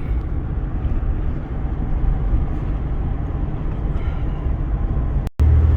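Steady engine and road rumble heard inside the cabin of a 2001 Mitsubishi Montero on the move, running smoothly with its new spark plugs and plug wires. About five seconds in it cuts off abruptly and gives way to a louder, steady low hum.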